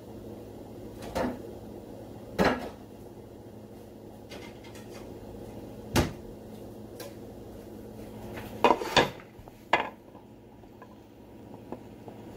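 Kitchen utensils and dishes being handled: scattered sharp knocks and clatters, a cluster of them about three-quarters of the way through, over a steady low hum.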